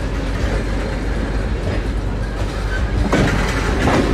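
Railroad tank cars of a slow-moving freight train rolling past, with a steady rumble of steel wheels on the rails. From about three seconds in, the wheel noise gets louder, with clacks and knocks as the trucks pass over the rail joints.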